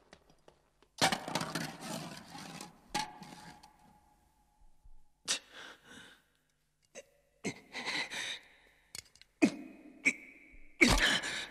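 Scattered short sounds and breaths, then near the end the loudest sound: an aluminium drink can's pull tab cracked open with a sharp snap and hiss.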